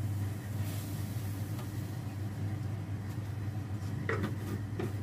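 A few light clinks and knocks about four seconds in as a bottle and a glass jar are handled beside the stove, over a steady low hum.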